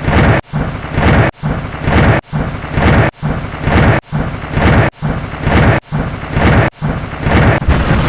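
A thunderclap sound effect with rain hiss, played over and over, each rumble cut off abruptly and restarted about once a second, one per count. Near the end the rumbles run together without breaks.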